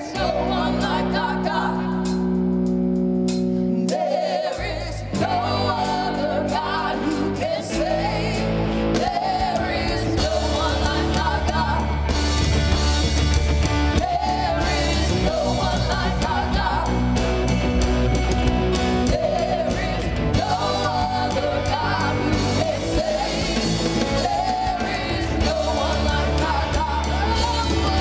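Worship song: a singer over a band with steady bass, drums and guitar.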